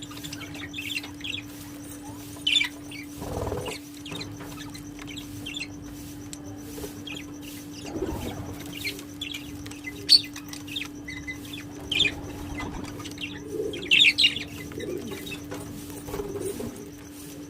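Parrots chirping with many short, high calls, with a couple of brief fluttering or rustling bursts. A steady low hum runs underneath.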